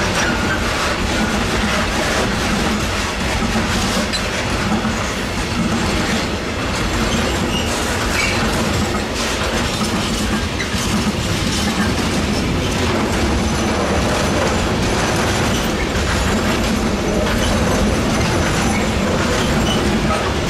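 Freight train rolling past: a steady rumble of wagons with wheels clicking over rail joints, and a faint high wheel squeal in the second half.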